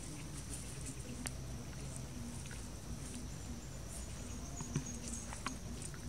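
Outdoor ambience with a steady high insect drone and scattered light clicks and rustles, the sharpest tick about five seconds in.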